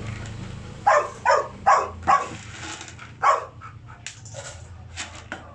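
A dog barking, five short sharp barks in the first three and a half seconds. Near the end come a few light clicks and scrapes of a spoon in a plastic tub of powder.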